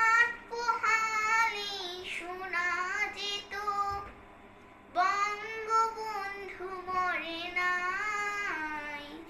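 A young girl singing a Bengali song unaccompanied, drawing out long held notes, with a short break about four seconds in.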